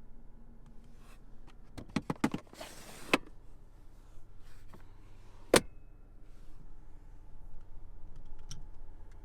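Handling noises around a car: a quick run of clicks and a short rustle, then a single loud thud about five and a half seconds in, such as a car door shutting, with a few faint ticks near the end.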